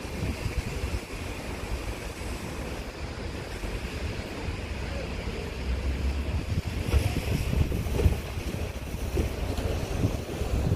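Wind buffeting the microphone: a gusty low rumble over a steady outdoor hiss, growing stronger from about six seconds in.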